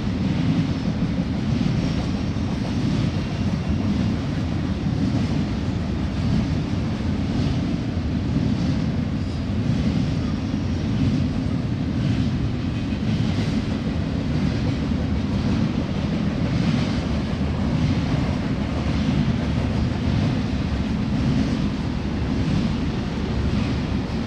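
Union Pacific double-stack container train rolling past at track speed: a steady low rumble of steel wheels on rail with faint regular clicks about once a second.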